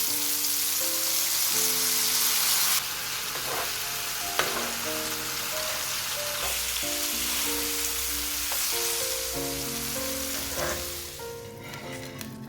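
Food sizzling as it fries in hot oil in a pan. The sizzle is loudest for the first few seconds, then eases and fades out near the end, with a single sharp tap about four seconds in. Soft background music plays underneath.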